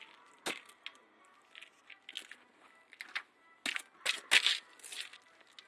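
Handling noise: scattered clicks, taps and rustles, busiest and loudest a bit past halfway, as a hand works over the top of a diesel engine that is not running.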